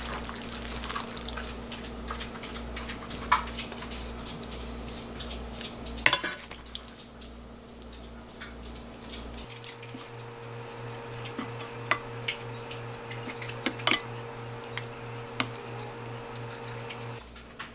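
Wooden spatula and chopsticks scraping and tapping against a nonstick frying pan and a ceramic plate as stir-fried pork and kimchi is served out, with scattered light clicks and one sharper knock about six seconds in.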